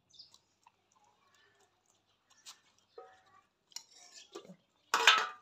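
Light clinks and ticks of a steel spoon against a steel bowl as puppies are fed, then near the end one loud, brief metallic clatter of a steel plate being lifted off a bowl.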